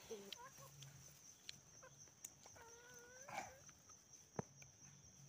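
Faint chicken calls in the background, with one drawn-out call about three seconds in, and a single sharp click a little after.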